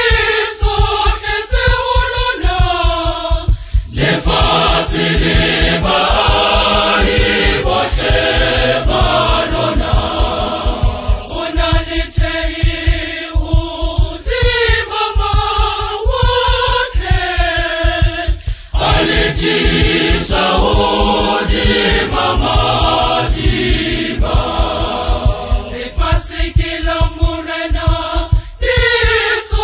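Choir singing a Sesotho song in harmony over a steady beat.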